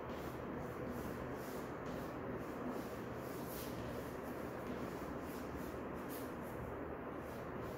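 Faint, irregular scratching of a pen or marker drawing or writing, over a steady background hiss.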